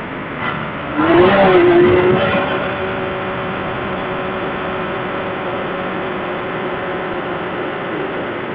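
Side-by-side UTV engine running under load, climbing a sand dune: a louder surge with a dip and rise in pitch about a second in, then a steady drone.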